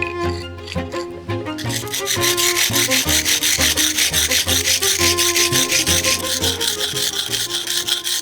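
Fast, even back-and-forth abrasive rubbing, about five strokes a second, starting a couple of seconds in, over background music with held string notes.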